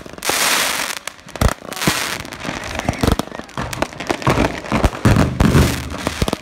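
Consumer fireworks going off close by: a fountain hissing as it sprays sparks for about the first second, then a string of sharp bangs and crackling from bursting aerial effects, thickest in the last two seconds.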